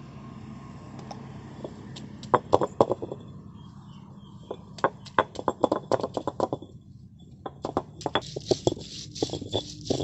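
Stone roller of an ammi knocking down on pieces of ginger and garlic and grinding them dry against the flat grinding stone: sharp stone-on-stone taps about 2 s in, a quicker cluster around the middle, then rapid tapping and scraping near the end.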